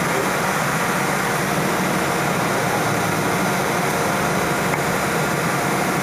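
Steady rushing hum of a running fan, unchanging throughout.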